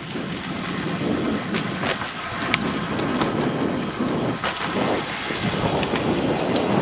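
Gusty wind buffeting the microphone of a camera on a moving road bike, a steady rumbling rush that swells and eases, with one sharp click about two and a half seconds in.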